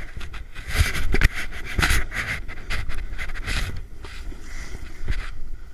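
Snow scraping and hissing under a rider sliding down a groomed slope, swelling in surges as the edges bite, with wind rumbling on the chest-mounted camera's microphone.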